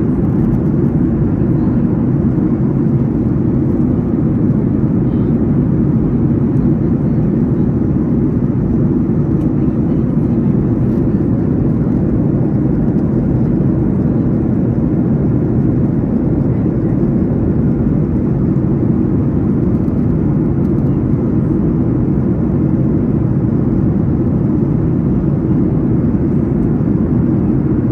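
Steady low rumble of airliner cabin noise, the engines and airflow heard from inside the passenger cabin.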